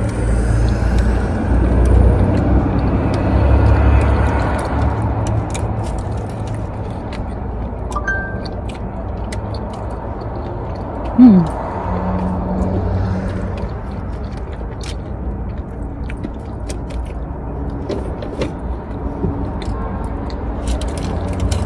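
Someone chewing a chocolate pretzel, with small scattered clicks, over a steady low rumble. About eleven seconds in there is one short, loud, falling hum from a voice.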